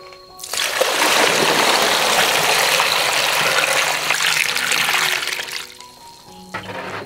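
Water poured from a bowl over a pile of cucumbers in a wok, splashing onto the vegetables and the wok for about five seconds, starting about half a second in.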